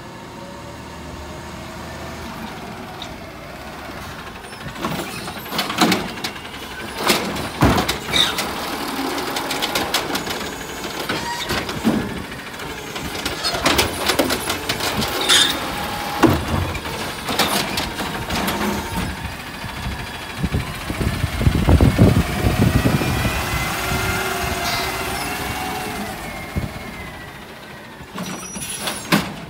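Automated side-loader garbage truck working a cart: the engine runs and revs to drive the hydraulic arm, with a series of loud bangs and clatters as the cart is lifted and shaken out over the hopper. Later the engine revs harder with a whine that rises and falls as the arm sets the cart back down.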